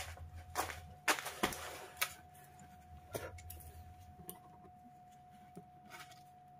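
Crinkling and rustling of a plastic lickable cat-treat stick being handled and torn open. There are a few sharp crackles in the first three seconds, the loudest about a second in, and it goes quieter as the paste is squeezed out. A faint steady high whine sits underneath.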